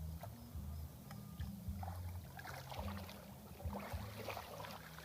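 Water splashing and trickling, with scattered clicks about two to four and a half seconds in, over a steady low rumble.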